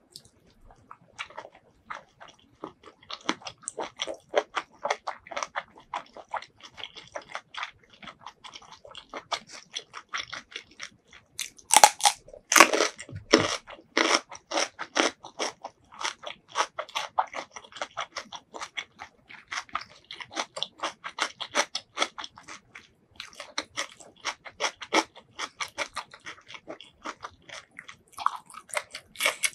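Chewing and biting of squid in a spicy salad: a dense run of crunchy, wet chewing clicks. The loudest bites come about twelve seconds in, and there is a short break a little after twenty seconds.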